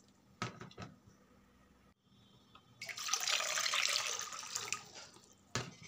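Water pouring and splashing into a metal karahi for about two seconds in the middle, with a couple of light knocks just after the start and one just before the end.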